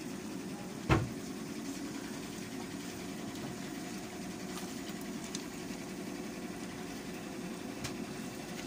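A silicone spatula stirring a thick meat stew in a nonstick pan, with one sharp knock against the pan about a second in. Under it runs a steady low mechanical hum.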